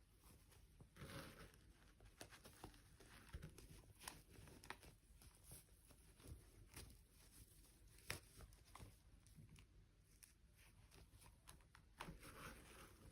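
Faint handling noises: scattered soft clicks and brief rustling or crinkling, a little busier about a second in and again near the end.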